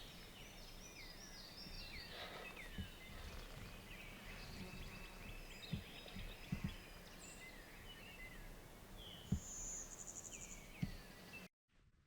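Several songbirds singing: many short chirps and whistles, with a high buzzy trill near the end and a few soft low thumps. The sound cuts off abruptly just before the end.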